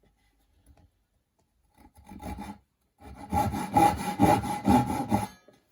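Steel-pinned marking gauge scribing the hinge depth line into the edge of a wooden door, its fence rubbed back and forth along the wood. A short scrape about two seconds in, then a run of quick, loud rubbing strokes, about four a second, through most of the second half.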